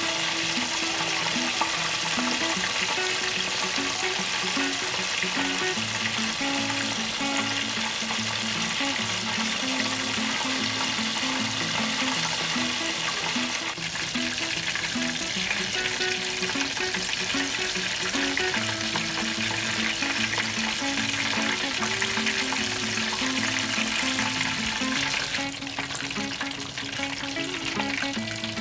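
Chicken pieces deep-frying in hot oil, a dense steady sizzle, with soft background music of short held low notes. About three seconds before the end the sizzle thins and gets quieter.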